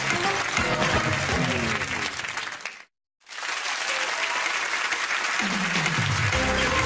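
Studio audience applauding over the show's theme music. It fades out to a moment of dead silence about three seconds in, then fades back in with applause and music, and a falling note near the end.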